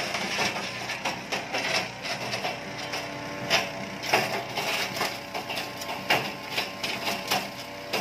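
Wood chipper-shredder driven by a 7 HP four-stroke petrol engine, running steadily as tree branches are fed in. The blades chip the wood with irregular sharp cracks and clatter over the engine's drone.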